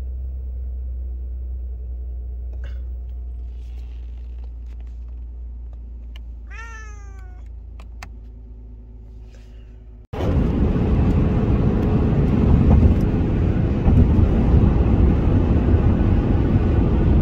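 A low steady hum with a cat's short meow, falling in pitch, about six and a half seconds in. About ten seconds in, it cuts abruptly to loud, steady vehicle road noise.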